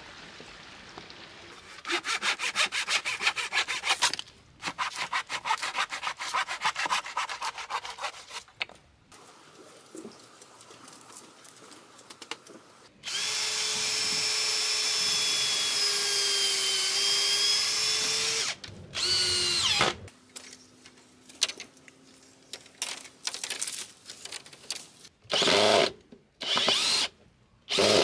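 Cordless drill working into a wooden frame: one steady run of about five seconds with a whine that shifts a little in pitch, then a short burst, then several brief bursts near the end. Earlier, two stretches of fast, repeated scratchy strokes.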